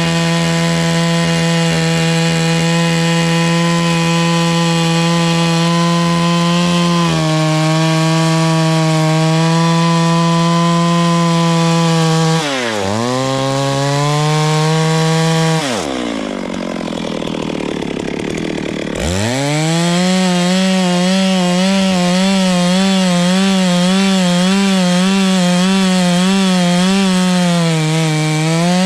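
Two-stroke chainsaw running at high revs while cutting into a tree trunk. Its note holds steady, dips sharply about halfway through, then drops lower for about three seconds before revving back up. In the last third the pitch wavers up and down as the load on the chain changes.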